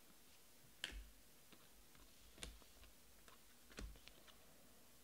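Trading cards flicked and slid off a stack in the hand, giving a few sharp clicks, three louder ones about a second and a half apart, over near silence.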